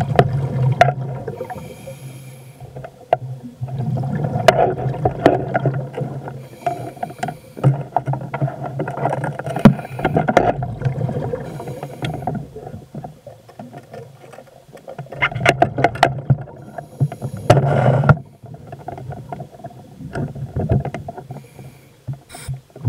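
Water swishing and bubbling around an underwater camera as it is carried through the water, coming in irregular surges every few seconds.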